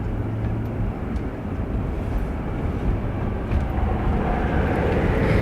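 Car driving along a road, with steady engine and tyre rumble heard inside the cabin; the noise grows louder over the last couple of seconds.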